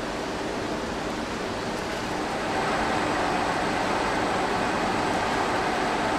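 Industrial kneading mixer running steadily as it churns colour-pencil lead paste, a dense machine noise that gets louder about two and a half seconds in.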